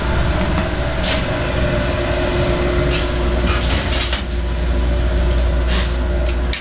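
Steady low drone of shop machinery. Over it come a few sharp knocks and clatters as a clay roof tile is handled and set on the sandblast cabinet's metal mesh grate.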